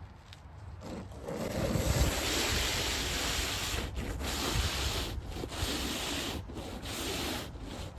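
ClearPlow snow pusher on a hand truck scraping along the asphalt and shoving heavy wet snow as it is pushed forward. The scraping starts about a second in and runs steadily, with brief breaks.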